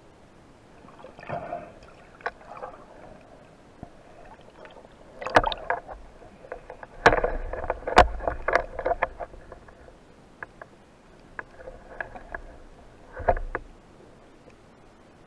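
Underwater clicks, knocks and scraping from a speared fish and the steel speargun shaft being handled by gloved hands, with a dense cluster of sharp knocks around the middle.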